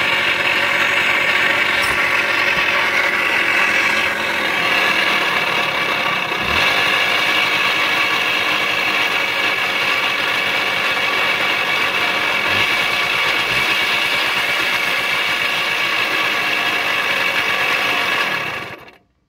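Suzuki DS80's single-cylinder two-stroke engine running with a growling sound from the crank, the sign of bad crankshaft bearings. The sound cuts off suddenly near the end.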